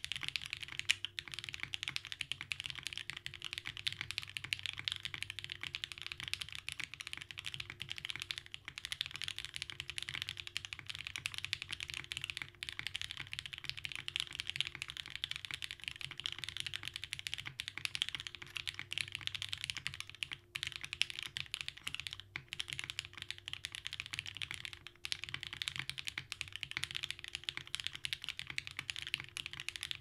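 Fast, continuous typing on a TGR 910 ME custom mechanical keyboard fitted with Gateron Box Ink Black V2 linear switches on a top-mounted polypropylene plate with no dampening, under GMK Pacific keycaps: a dense stream of key clacks with a few brief pauses in the second half.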